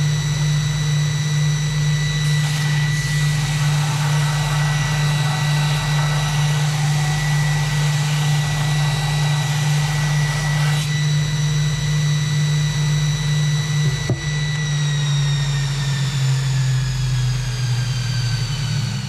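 Belt grinder motor running with a steady hum and whine. From about two seconds in until about eleven seconds, a metal part is pressed against the belt and adds a rough grinding rasp. About two-thirds through, a click comes as it is switched off, and the whine falls as the belt and motor wind down.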